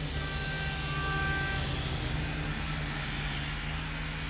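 A train horn sounds once, a single steady note lasting about a second and a half, over a steady low engine drone. It is a warning tone to track workers on the line.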